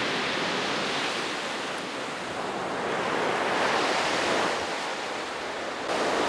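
Ocean surf breaking and washing on a sandy beach: a steady rush of waves that swells and eases, building again near the end.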